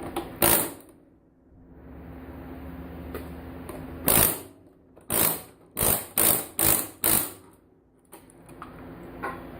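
Pneumatic air hammer (air chisel) fired in short trigger bursts against a circuit board, knocking chips and components off: one burst about half a second in, then six quick bursts in a row over about three seconds in the middle. Very noisy.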